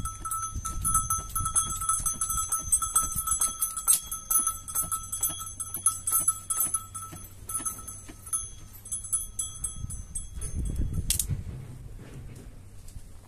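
Small metal livestock bells jingling and clinking continuously, then stopping after a sharp knock about eleven seconds in.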